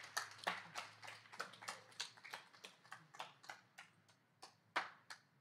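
Scattered applause from a small audience: separate claps, a few a second, thinning out and fading, with a last louder clap near the end.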